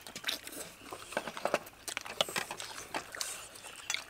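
Several people eating roasted chicken legs: wet chewing and lip-smacking with scattered sharp clicks, irregular throughout.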